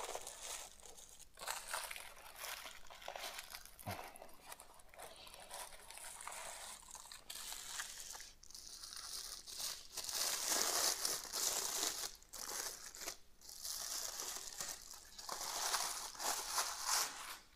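Plastic packaging wrap crinkling and rustling in irregular handling noises as a statue is pulled from its styrofoam tray and unwrapped, loudest past the middle and again near the end.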